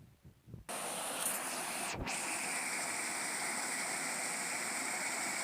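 Steady rushing of flowing water. It starts abruptly about a second in after a near-quiet moment with a few soft low thumps, with a brief dip around two seconds.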